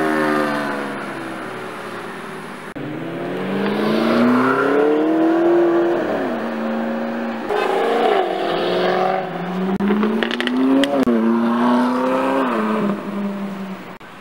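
Sports cars, a slant-nose Porsche 911 and then a Jaguar F-Type, accelerating hard away one after another. The engine notes rise as they rev and drop sharply at each upshift, with a few sharp exhaust pops late on.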